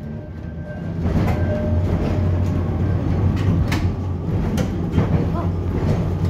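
Heritage electric tram rolling along its street rails: a steady low hum that grows louder about a second in, with half a dozen sharp knocks as the wheels run over the track.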